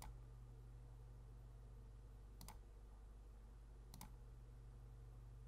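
Three sharp computer mouse clicks, spaced a couple of seconds apart, over a faint steady low hum; otherwise near silence.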